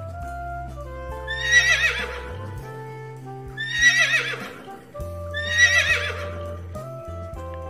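A horse whinnying three times, each whinny about a second long with a quavering pitch, over background music with steady low notes.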